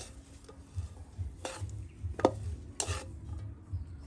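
Wooden chopsticks stirring and scraping sugared coconut strips around a wok while the coconut jam (mứt dừa) cooks, with a light sizzle. Three short, sharper scrapes stand out near the middle.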